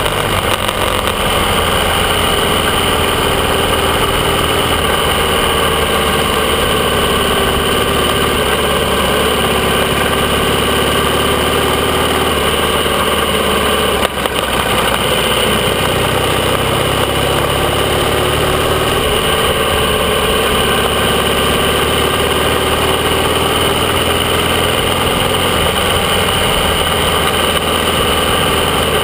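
AJS 650 CSR parallel-twin engine running under way, heard from the motorcycle itself. Its pitch sags and then climbs again around the middle, with a brief dip in loudness about halfway through.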